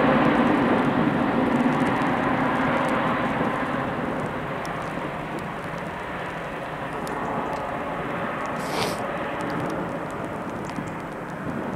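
Jet engines of a Ryanair Boeing 737-800 on the runway: a loud, steady rush of engine noise that fades as the aircraft moves away.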